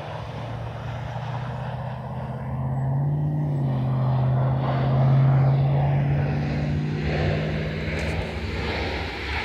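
Twin-engine jet airliner's engines during the landing roll just after touchdown, a low drone that steps up in pitch about three seconds in as the engines spool up, typical of reverse thrust, peaking around five seconds and then easing off.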